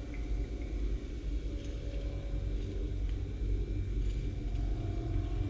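A steady low rumble, with hot frying oil in a small pot faintly sizzling as fried fish pieces are lifted out with metal tongs.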